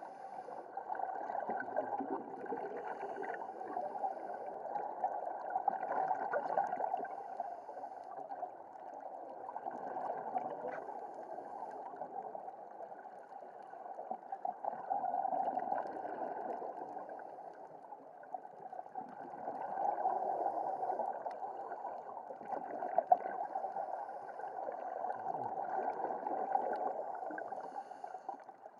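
Muffled gurgling of a scuba diver's exhaled regulator bubbles, heard underwater through a camera housing. It swells and fades about every four to five seconds with each breath.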